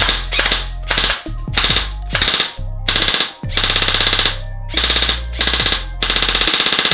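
G&G Firehawk High Cycle airsoft electric rifle firing repeated full-auto bursts, a very fast, even rattle of shots. Most bursts are short, and two near the middle and at the end run about a second each.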